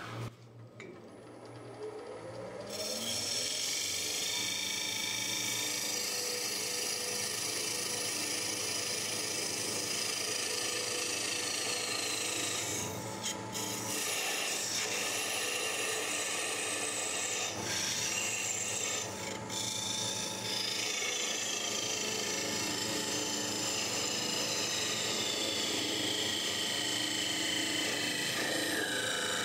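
Thin parting tool cutting into the base of a spinning arbutus goblet on a wood lathe. A steady scraping hiss with high whistling tones that slowly slide down in pitch starts about three seconds in, after a brief rising hum as the lathe comes up to speed.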